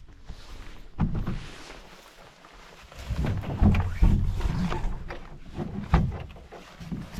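Canoe being handled and moved: irregular knocks and thumps over a low rumble, louder from about three seconds in.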